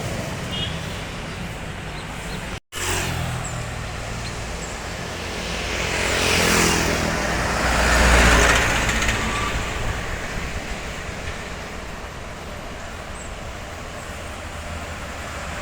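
Road traffic noise with a vehicle passing close by: the engine and tyre noise swells to its loudest about eight seconds in, then fades. The sound cuts out completely for a moment about three seconds in.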